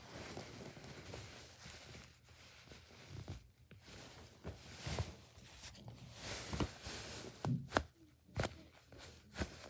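Foam squishy toys being squeezed and handled by hand: soft rustling and squishing with a run of sharp taps and clicks, the loudest a little before the end.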